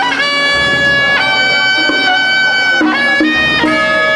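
Instrumental music: a melody of long held notes that step up and down between pitches.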